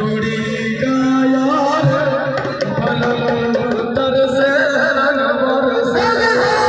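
A Holi song played loud through a stage sound system: a voice sings a wavering melody over drums and steady bass notes.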